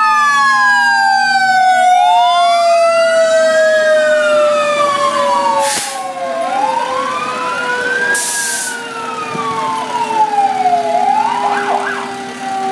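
Fire engine sirens: a wail rising and falling about every four and a half seconds over a steady tone that slowly drops in pitch, with two short hisses in the middle and a quick yelp near the end.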